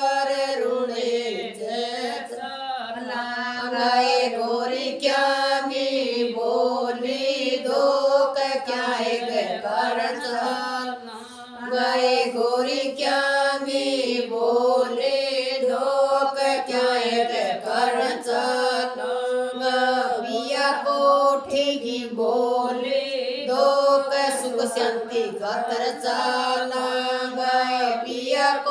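Group of women singing a Baba Ramdev devotional bhajan together in a repetitive, chant-like melody, with a short break about eleven seconds in.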